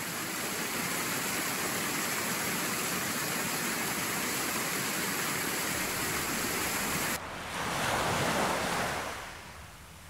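Water rushing down an icy waterfall over rocks, a steady even rush of noise. About seven seconds in it cuts suddenly to a different, softer rush that swells and then fades away.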